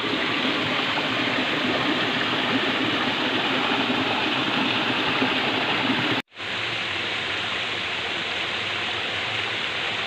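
Shallow creek water running steadily over rocks in a continuous rush. The sound cuts out for a moment about six seconds in and resumes a little quieter.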